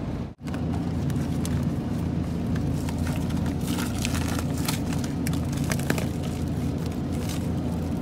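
Steady low mechanical hum of store refrigeration, with scattered light crackles and clicks through the middle seconds and a brief dropout just after the start.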